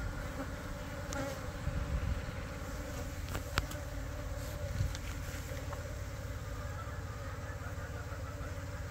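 A swarm of Korean native honeybees (Asian honeybees) buzzing steadily around a box hive as the swarm moves into it, with one sharp click about three and a half seconds in.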